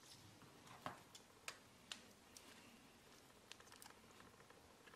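Near silence with scattered faint clicks and taps from hands handling small electronic parts and a camcorder body, most of them in the first half.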